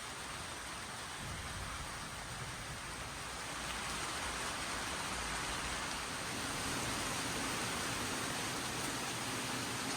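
Steady rain falling, a continuous even hiss that grows a little heavier about four seconds in.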